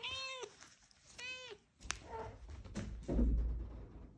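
Scottish Straight cat meowing twice, two short calls that rise and fall in pitch. Then a sharp tap and, about three seconds in, a louder low thump with rustling.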